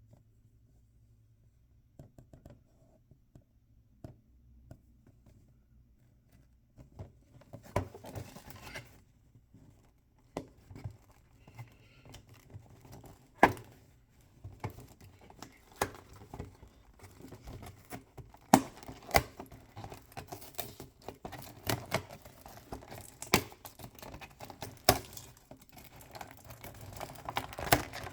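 Hands unwrapping small toy packaging: wrappers crinkling and tearing, with many sharp clicks and taps of small plastic parts. It starts about seven seconds in, after a quiet stretch with a few faint ticks.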